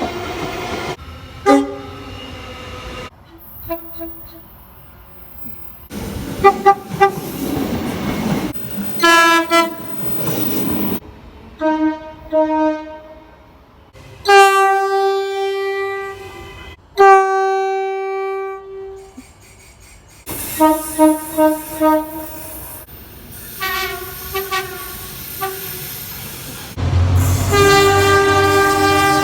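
Locomotive horns sounding in a string of separate recordings cut together: groups of short blasts and a few long held ones, each a chord of several notes. Under the last long blast there is the low rumble of a passing train.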